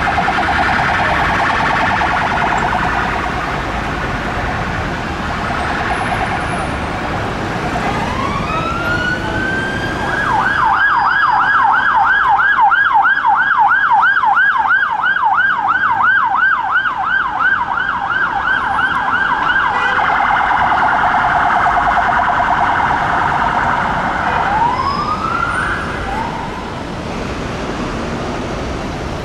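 UK police vehicle sirens in traffic, changing pattern: a rapid warble, then a rising tone that turns into a fast up-and-down whoop about four times a second, then back to a rapid warble, with the tone rising again near the end. A low traffic rumble runs underneath.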